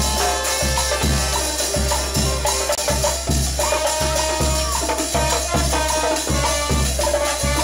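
Latin dance music from a band: a steady bass beat just under twice a second, with percussion and held melody notes over it.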